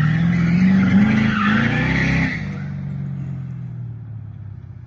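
Ford Mustang SN95's 5.0 V8 revving with its rear tyres squealing in a slide. About two seconds in the squeal stops, and the engine drops to a lower, steady note that fades away.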